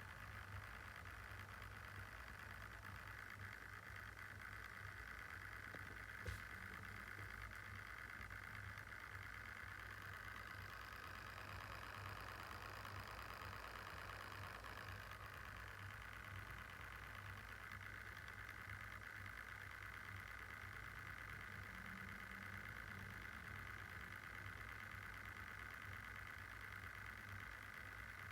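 Lenovo Yoga Slim 7 laptop's cooling fan running at idle with a steady, faint whir; a fainter higher tone joins for a few seconds near the middle, and there is one sharp click about six seconds in. The owner finds this idle fan noise sounds faulty.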